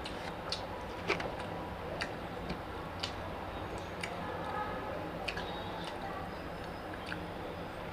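Eating sounds: a steady low background hum with scattered sharp clicks and smacks from chewing, about one a second.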